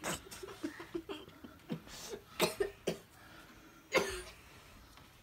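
Children stifling their laughter: a run of short, breathy bursts of suppressed giggling, the loudest about four seconds in.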